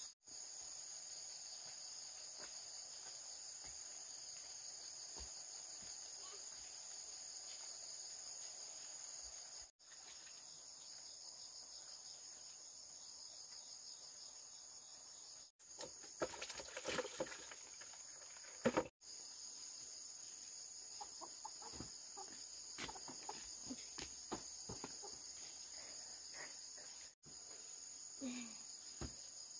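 A steady, high-pitched chorus of insects, broken off for a moment a few times. Scattered knocks and taps sound over it, with a denser clatter about two-thirds of the way through.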